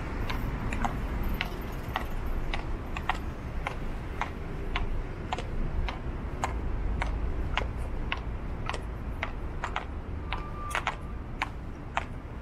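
Footsteps clicking sharply on a city sidewalk, about two a second and slightly uneven, over a steady low traffic rumble. A short beep sounds about ten seconds in.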